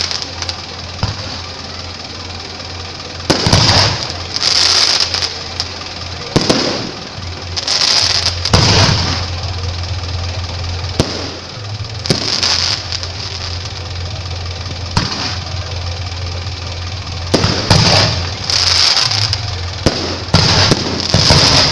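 Aerial firework shells bursting in a display: loud bangs at irregular intervals, one to three seconds apart, some running on for a second or so, over a steady low hum.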